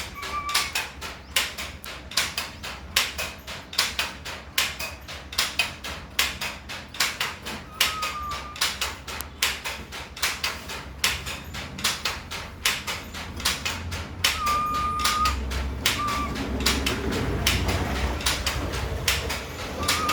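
Baby monkey giving a few short, thin, high squeaks, over rapid irregular clicking, about two to three clicks a second.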